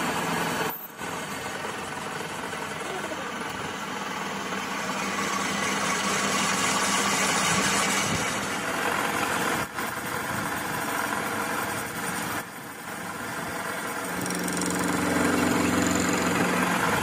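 Metal lathe turning a steel gearbox input-shaft part while the cutting tool peels off curled steel chips: a steady motor hum with the hiss of the cut, dipping briefly a few times.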